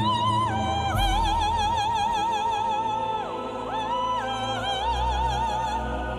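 Operatic solo singing in a high voice: long held notes with a wide, even vibrato, sliding between pitches, with a brief break a little past halfway, over low sustained orchestral accompaniment.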